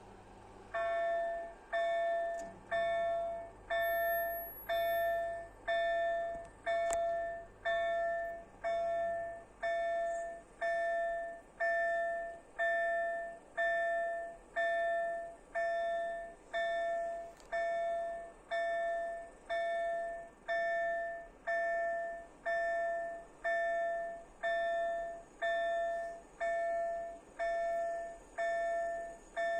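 Level-crossing warning bell (KLD4103 electronic acoustic signal) ringing in steady single dings about once a second, each dying away. It begins about a second in and warns that the crossing is closed for an approaching train.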